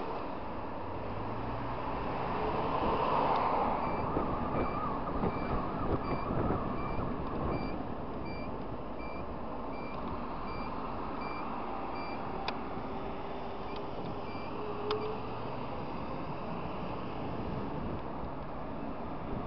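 Scooter's turn-signal buzzer beeping evenly, about one and a half beeps a second, for about eight seconds while the indicator is on for a turn, over the steady drone of the running scooter engine and wind noise.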